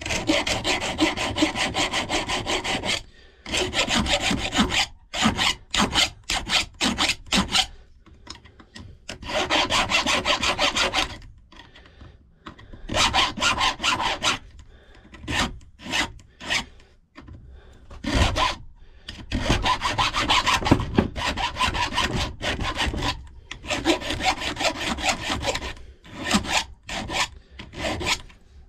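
Flat hand file scraping across a warded key held in a bench vise, in runs of quick strokes broken by pauses and a few single strokes. The filing finishes the bullet ward cut by hand, taking off the slope the key machine left on one side.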